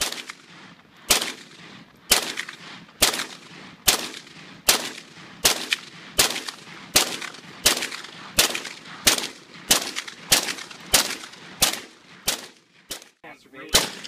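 Semi-automatic rifle fired in a steady string of about eighteen single shots, each with a short echoing tail, the pace quickening from about one shot a second to nearly two.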